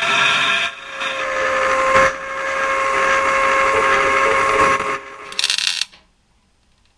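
Electric power tool running with a steady whine, dipping briefly about a second in and stopping about five seconds in, followed by one short final burst.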